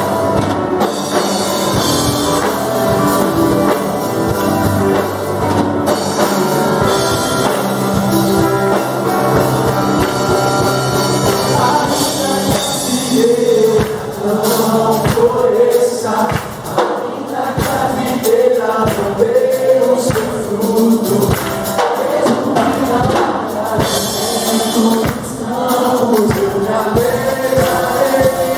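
Live gospel worship band playing: keyboard, electric guitar, drum kit and bass guitar. Voices sing the melody over the band from about halfway through.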